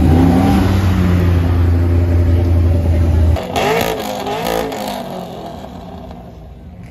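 Car engines at a car meet: a loud, steady low engine drone with the revs climbing, cutting off abruptly about three and a half seconds in; then another car's engine revs up and down and fades away.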